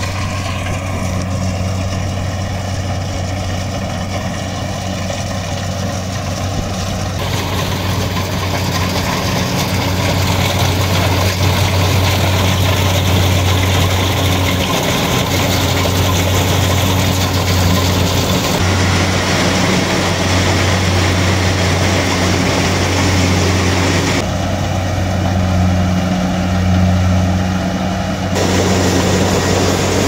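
Kubota DC-70 rice combine harvester running while cutting rice: a steady diesel engine hum with a wide mix of machinery noise over it. The sound shifts abruptly several times.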